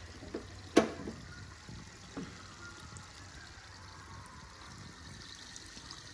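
Hot desi ghee sizzling softly in a pot just off the heat, still bubbling, with a sharp click about a second in and a couple of fainter ticks.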